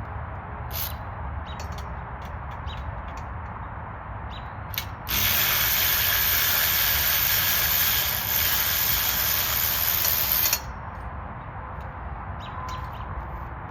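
A ratchet wrench working a bolt on a shooting-bench frame. Scattered light clicks come first, then a loud, steady, fast rasp of ratcheting for about five and a half seconds that starts and stops abruptly, then more light clicks.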